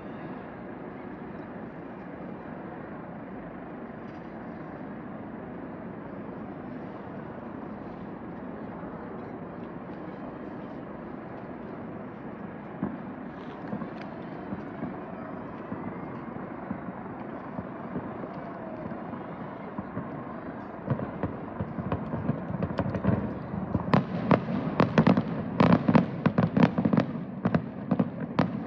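Steady outdoor background din, then aerial fireworks going off from about two-thirds of the way in: scattered bangs at first, then a rapid barrage of sharp reports near the end.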